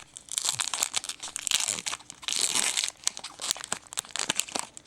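Foil trading-card pack being torn open and crinkled by hand, a dense run of crackles and tearing with sharp clicks, loudest in stretches around the middle.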